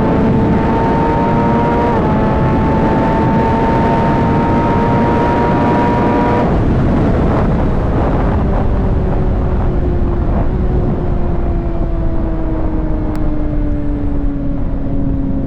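Kawasaki ZX6R 636 inline-four under way: the engine note climbs steadily with a brief dip about two seconds in, like an upshift, then about six seconds in the throttle closes and the revs fall slowly as the bike slows. Heavy wind rush throughout.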